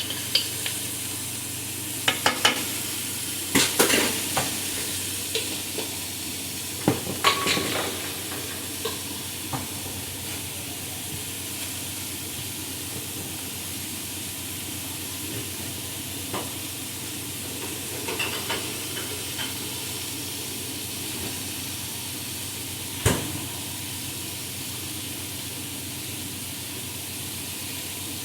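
Chicken drumsticks sizzling steadily in oil in a frying pan. A utensil knocks and clinks against the pan several times in the first eight seconds, again around 18 seconds in, and once sharply about five seconds before the end.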